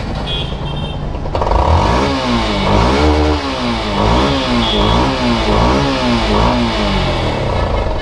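Motorcycle engine idling, then blipped repeatedly by hand on the throttle from about a second in, its pitch rising and falling with each quick rev. The engine is being revved to check the light white exhaust smoke it has been giving off.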